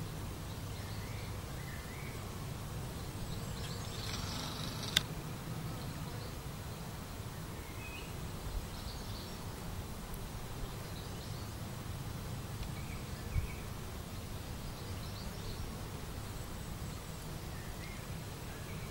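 Outdoor ambience: a steady low background hum with faint bird chirps now and then. There is a single sharp click about five seconds in and a soft low thump a little after the middle.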